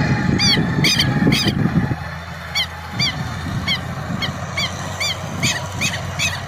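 A bird calling over and over in short harsh honking notes, about two a second, over the low running of a Valmet tractor's engine.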